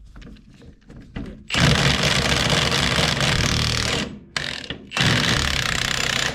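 Impact wrench rattling in two long bursts, the first about two and a half seconds and the second just over a second, as it undoes bolts holding the truck's front axle.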